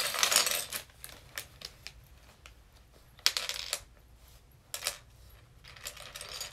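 Plastic Lego bricks clicking and clattering as they are tipped out and sorted by hand on a hard board, with a short crinkle of a plastic parts bag at the start. Sharp separate clicks come scattered through, the loudest about three seconds in.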